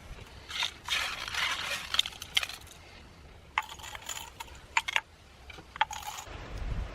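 Small hard objects clinking and rattling as they are handled, with short scraping and rustling sounds in between.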